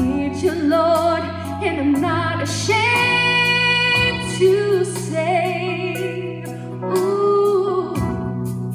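A woman singing a gospel song with wide vibrato over an instrumental accompaniment, with sustained low chords that change twice and a regular beat.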